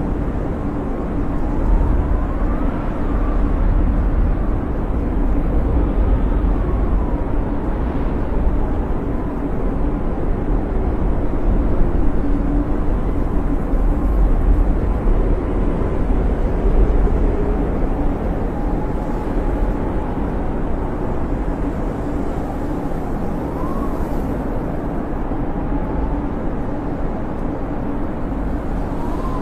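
Blizzard wind howling: a steady deep rushing rumble with faint whistles that rise and fall in pitch every few seconds.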